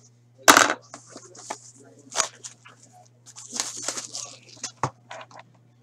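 Plastic shrink wrap being cut and torn off a sealed hockey-card box: crinkling and ripping in several short bursts, the loudest about half a second in, with a sharp click near the end. A steady low hum runs underneath.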